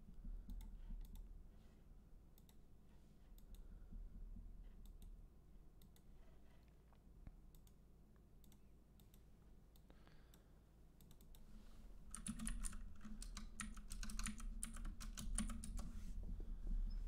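Faint scattered single clicks, then about twelve seconds in a quick run of typing on a computer keyboard lasting several seconds, as a Bible reference is entered.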